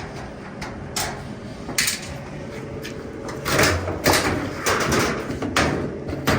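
Irregular clanks, knocks and scraping of sheet-metal dryer panels being handled and taken off, busiest about halfway through.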